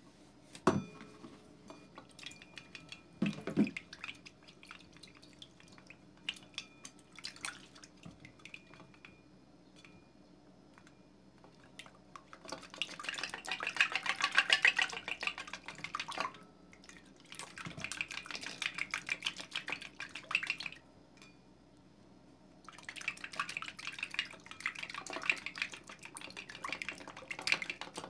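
A wooden craft stick stirring a watery, thickening slime mixture in a stainless steel bowl: rapid wet clicking, squelching and scraping against the metal, in three long spells with the first the loudest. Two sharp knocks come before the stirring starts.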